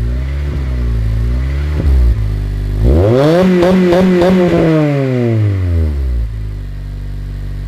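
2004 Acura RSX Type-S's 2.0-litre four-cylinder running through a new Invidia Q300 cat-back exhaust: idling, blipped lightly twice, then revved up sharply about three seconds in, held high for about a second and a half and let fall back to idle.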